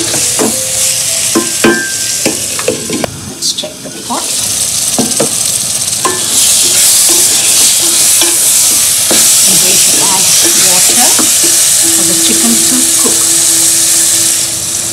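A wooden spatula stirs and scrapes chicken and masala frying in oil in a pot on a gas flame, with knocks against the pot and sizzling. About six seconds in, the sizzle turns louder and steady.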